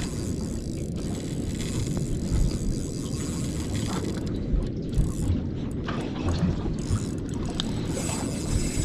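Steady wind and water noise buffeting the microphone on a small boat at sea, with a few dull knocks, under the cranking of a spinning reel as a heavy fish is reeled up from the bottom.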